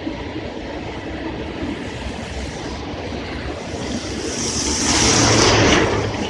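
Running noise of a moving vehicle crossing a bridge: a steady rumble with rushing air, swelling to a loud rush near the end.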